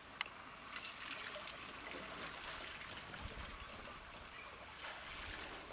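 Faint trickling and splashing of water as an African elephant drinks with its trunk in the pool. A single sharp click just after the start is the loudest sound.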